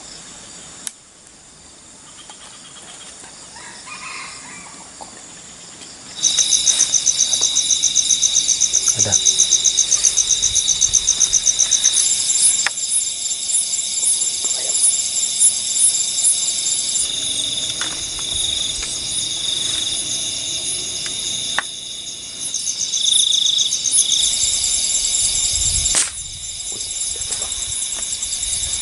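Night insects chirring in a loud, fast-pulsing high-pitched chorus that starts about six seconds in, after quieter ambience. The chorus changes abruptly several times, and a few sharp clicks are heard.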